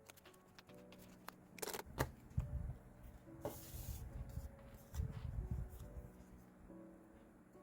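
Paper and stickers being handled and rustled on a desk, with small clicks, two stretches of low rustling and a brief hiss about three and a half seconds in. Soft piano notes sound underneath.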